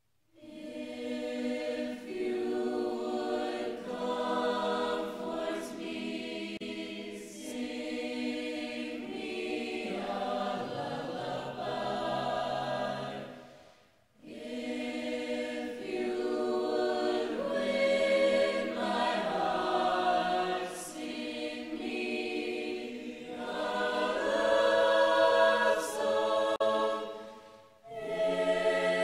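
Background choral music: a choir singing sustained chords in long phrases, starting from silence right at the beginning, with brief breaks about halfway through and again near the end.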